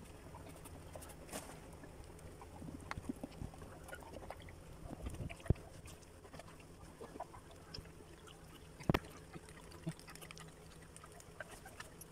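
Faint wet licking and handling sounds, with scattered small clicks and rustles, as a Belgian Malinois licks and chews at a newborn puppy's birth sac held up to her mouth. A couple of sharper knocks stand out, about five and a half and nine seconds in.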